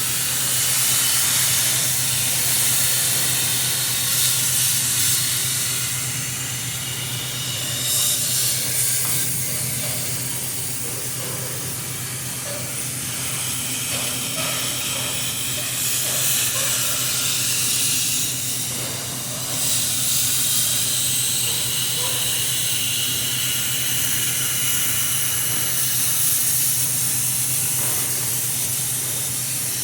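Plasma cutter cutting sheet metal: a steady loud hiss of the torch's air and arc, over a constant low hum.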